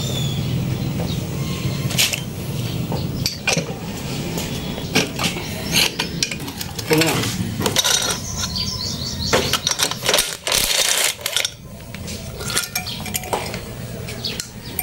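Metal hand tools clicking and clinking against a small single-cylinder gasoline engine as its cylinder head is unbolted and lifted off, with loose metal parts chinking. A steady low hum runs underneath.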